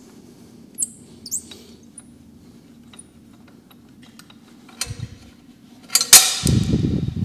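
Hand tools working on the exhaust header bolts of a Yamaha XSR 900: short high squeaks and light clicks of metal, a couple of knocks, then about six seconds in a sharp metallic strike followed by about a second of loud, rapid rattling.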